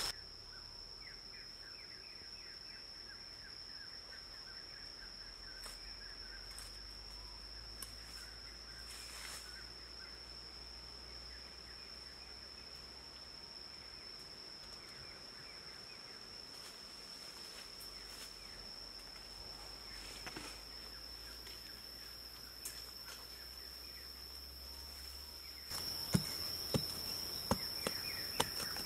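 Forest insects keeping up one steady, high-pitched drone, with a few faint bird chirps early on. Near the end a blade is driven into dry soil, giving a string of sharp knocks and scrapes as the ground is dug.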